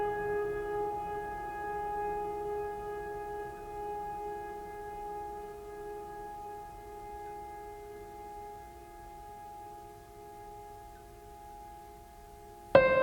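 Background music: a sustained droning chord that slowly fades, then a new, louder chord cuts in abruptly near the end.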